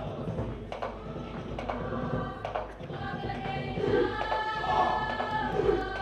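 A Cook Islands performing group singing together as a choir, with sharp beats about once a second during the first half, before the sung voices swell and dominate.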